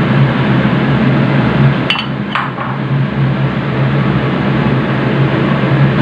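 Steady loud hum and rushing noise, like a running fan or motor. About two seconds in, two quick metallic clinks from stainless steel kitchen bowls knock through it.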